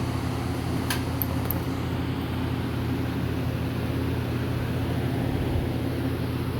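A refrigeration unit switching on: a steady low electric hum starts suddenly and runs on, with a single sharp click about a second in.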